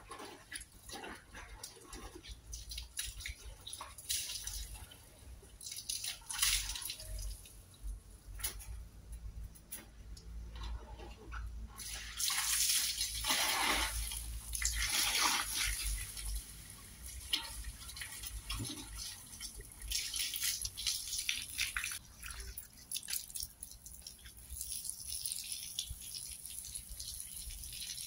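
Water splashing and dripping as rags are worked by hand in a plastic bucket, in short irregular splashes, with a louder rush of water for a few seconds about midway.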